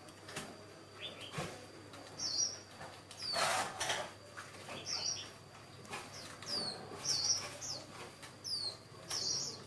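Small bird chirping repeatedly: short, high chirps that slide downward, coming about once a second. There is a brief rustle about three and a half seconds in.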